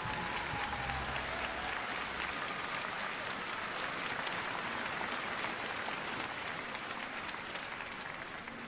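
Arena audience applauding, many hands clapping steadily, easing off slightly near the end.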